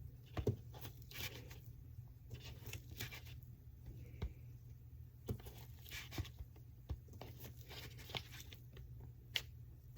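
Faint scattered taps, clicks and light rustling from food and utensils being handled in a kitchen, over a low steady hum.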